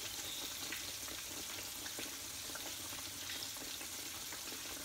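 Boneless milkfish (bangus) deep-frying in hot oil in a pan: a steady sizzle with many small scattered crackles.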